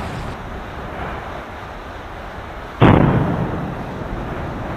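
Phreatomagmatic explosion at an erupting volcanic fissure, lava flashing groundwater to steam: a continuous rumble, then a single loud blast just under three seconds in that dies away over about a second.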